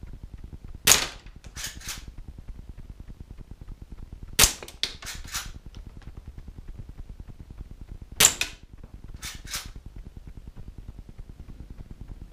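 Three shots from a gas-powered Walther Umarex Winchester-style airgun, a sharp crack about every three and a half seconds. Each shot is followed about a second later by a couple of lighter clicks.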